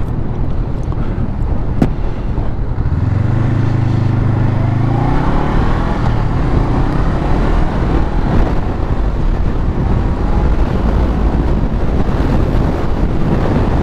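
Motorcycle engine pulling away, its pitch rising for a few seconds starting about three seconds in, under steady wind noise on the helmet microphone.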